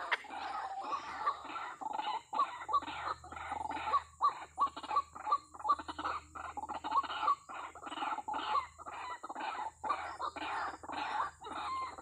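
White-breasted waterhen calling: a fast, even series of short calls, about three a second, kept up without a break.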